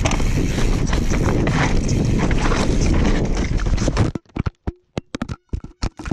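Wind rushing over the microphone with rumble from a mountain bike rolling over rough ground. It cuts off abruptly about four seconds in, leaving a scatter of sharp clicks and knocks.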